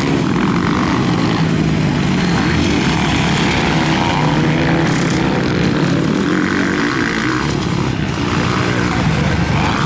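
Motocross dirt bike engines running hard on the track, their pitch rising and falling as the throttle is opened and closed.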